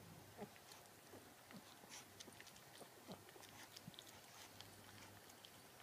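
Faint, irregular crunching and clicking of a dog eating dry kibble from a plastic bowl, with a low steady hum underneath.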